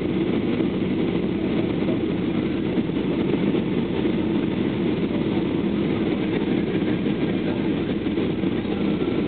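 Steady cabin noise of a jet airliner on final approach with flaps down, heard from a window seat: an even drone of engines and rushing air with no breaks.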